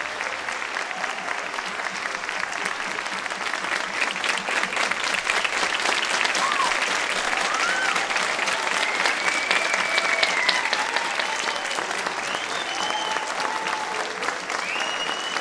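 Crowd applauding in a hall, dense clapping with a few cheers rising and falling over it; the applause swells about four seconds in.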